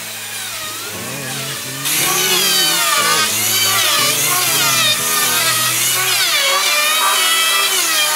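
Background music, then about two seconds in an electric hand planer starts, running loudly as it shaves the surface of a suar-wood slab.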